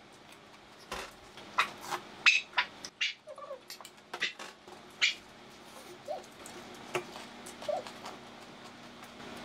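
People eating ramen from a pot: a quick run of short, sharp noodle slurps and spoon and chopstick sounds between about one and five seconds in, with a few fainter ones later.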